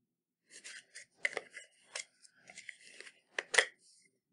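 A plastic Play-Doh tub being handled and its snap-on lid pried open. There is a run of plastic clicks and scrapes, with the sharpest clicks about a second and a half in and again near the end.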